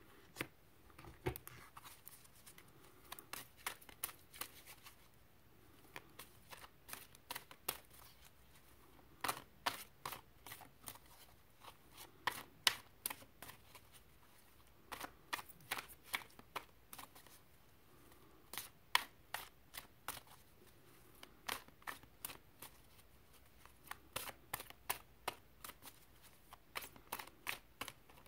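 Tarot cards being shuffled by hand: faint clusters of quick flicking clicks, broken by short pauses.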